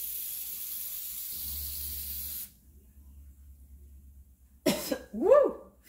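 Aerosol can of Easy-Off oven cleaner spraying in one steady hiss for about two and a half seconds. Near the end a person coughs sharply and gives a short voiced grunt, reacting to the harsh fumes.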